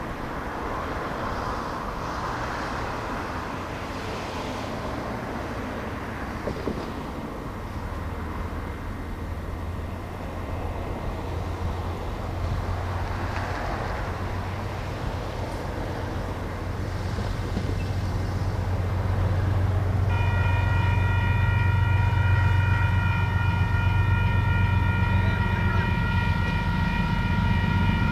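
Diesel-electric locomotive approaching, its low engine drone growing louder. About twenty seconds in, its multi-tone horn starts and is held for several seconds.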